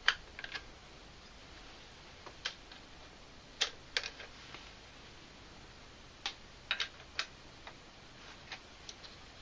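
Light, sharp clicks and ticks at uneven intervals, about fifteen in all, the loudest right at the start, over a faint steady hiss.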